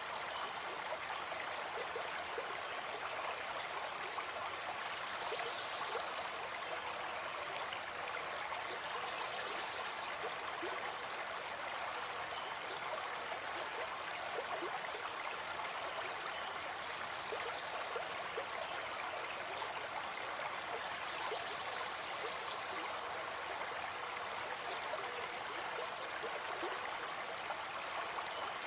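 A stream flowing steadily: an even, unbroken rush and babble of running water.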